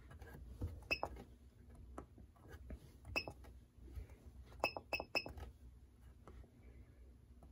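Herpstat reptile thermostat's keypad beeping as its buttons are pressed while the temperature setting is changed, with faint taps from the buttons. There are five short high beeps: one about a second in, one about three seconds in, then three in quick succession a little after four and a half seconds.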